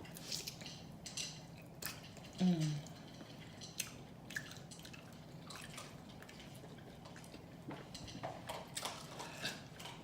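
Close-miked eating: wet mouth smacking and chewing as scattered sharp clicks, growing busier near the end. A short falling hum of the voice about two and a half seconds in.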